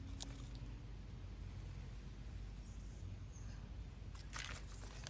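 Quiet low background hum with a few faint clicks, the clearest a short cluster about four seconds in.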